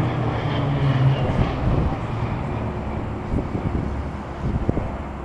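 Pilatus PC-9/A turboprop aircraft flying past, a steady engine drone that fades after the first second or two, with wind noise on the microphone.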